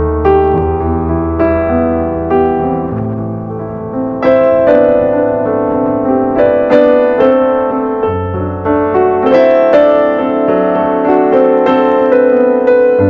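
Background piano music: gentle sustained chords, with a bass note that changes every few seconds and melody notes struck on top.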